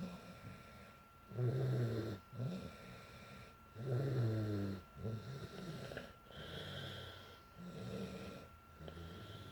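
A sleeping girl snoring in a deep, rattling rhythm with each breath. The two loudest snores come about a second and a half in and about four seconds in, followed by softer, shorter snores.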